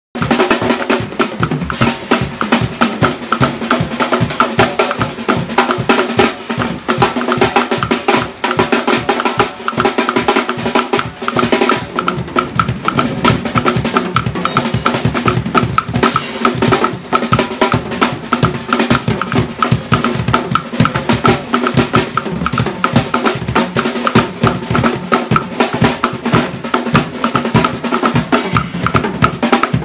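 Acoustic drum kit played fast and hard: dense snare and tom strokes over bass drum, with cymbal crashes and rimshots.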